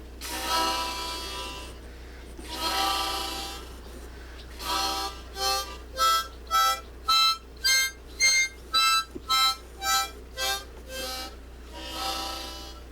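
Harmonica playing a short tune: two long held chords, then a quick run of short separate notes at about two a second, then another long chord near the end.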